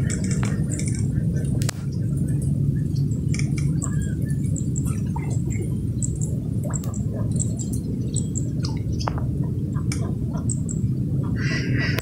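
Steady low rumble of wind buffeting the microphone, with many short, faint bird chirps and calls scattered over it.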